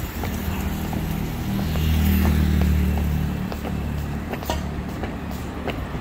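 A car driving past close by, its low engine hum swelling about two seconds in and then fading back into steady street traffic noise.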